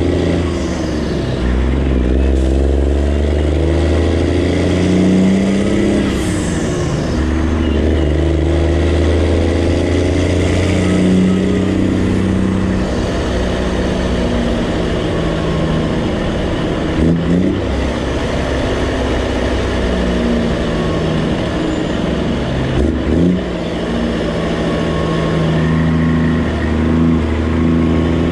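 Straight-piped Detroit Diesel Series 60 inline-six in a Kenworth truck running under load on the road. Its exhaust pitch climbs and drops back several times as it pulls up through the gears.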